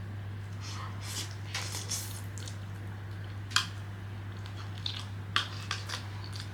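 Close-up eating sounds: wet chewing and mouth smacks with a few sharp clicks of chopsticks, the sharpest about halfway through, over a steady low hum.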